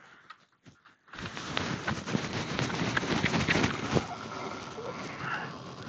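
Dense splashing and crackling noise with many small sharp clicks, starting suddenly about a second in and running on.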